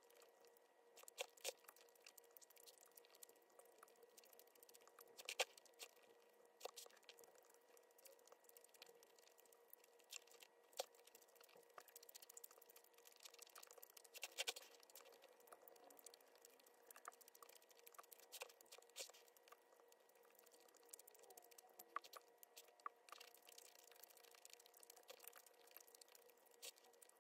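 Faint eating sounds: scattered soft clicks, crunches and crinkles of food, utensils and packaging, the loudest about five and fourteen seconds in, over a faint steady hum.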